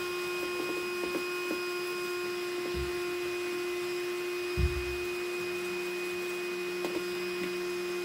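Black+Decker PowerSeries Pro cordless vacuum running with a steady whine, its hose and brush nozzle sucking dust out of a wet/dry vac's motor housing. A few low knocks, the loudest about halfway through, as the nozzle bumps the housing.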